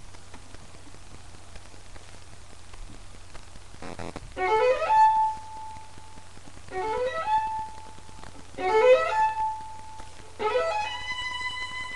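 Solo violin: after a few seconds of low steady hum and a brief knock, it plays four phrases, each a quick rising run of notes that ends on a held note, the last held note higher than the others.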